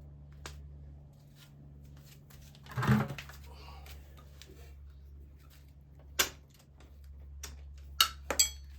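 Clinks and knocks of tools and metal parts as the old rear shock is worked loose from a Can-Am DS650 ATV, with a louder thump about three seconds in and sharp clanks near the end, over a steady low hum.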